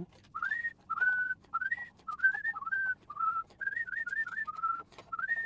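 A man whistling a tune in short notes, many of them sliding upward, with faint clicks underneath.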